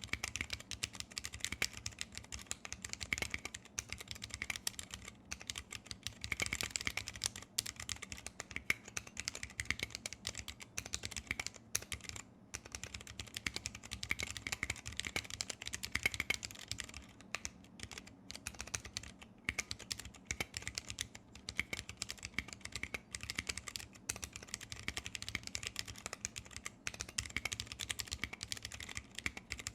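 Continuous fast typing on a 60% mechanical keyboard with vintage brown Alps switches lubed with PTFE under PBT keycaps: a dense, uneven run of keystroke clicks with a few short pauses.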